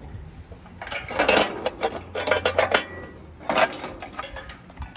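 Metal items clinking and clattering as they are handled: a quick run of sharp clinks starting about a second in and lasting nearly two seconds, then another short clatter past the middle.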